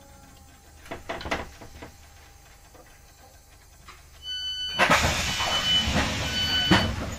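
Class 465/9 Networker train's door warning beeps sounding in repeated pulses from about four seconds in, together with the loud rush of the sliding passenger doors moving. A few knocks come about a second in.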